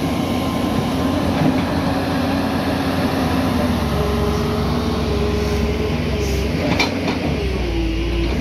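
Diesel engines of hydraulic excavators running steadily. About four seconds in, the sound changes to a different machine with a higher engine note, and there is a single metallic clank near the end.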